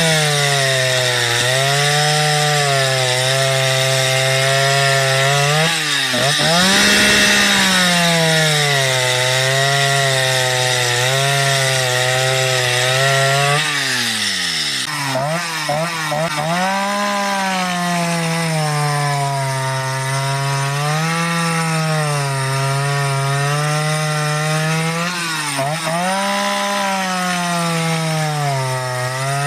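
Modified Husqvarna 77 two-stroke chainsaw, running a 372XP carburettor, cutting through wood at high revs. The engine pitch sags and recovers as the chain bites. About halfway through the pitch drops steeply, nearly to idle, then climbs back as cutting resumes.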